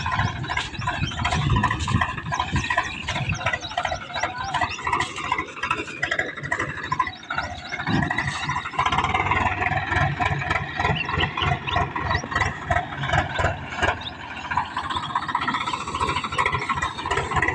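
Tractor's diesel engine running hard under load as the tractor drives through loose sand, its pitch rising and falling with the revs.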